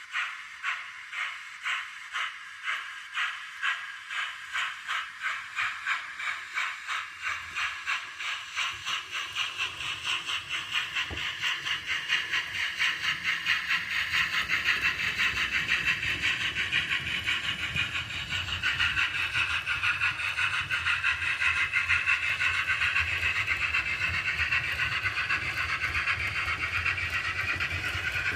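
Model steam locomotive's DCC sound decoder chuffing, the beats quickening as the loco accelerates until they blur into a steady rush. A low rumble comes in underneath about eight seconds in and grows.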